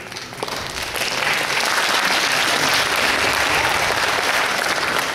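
Theatre audience applauding: the clapping builds within the first second, holds steady, and begins to fade near the end.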